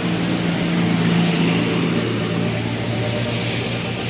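Bus engine running steadily over a steady hiss, its low note dropping lower about a second and a half in.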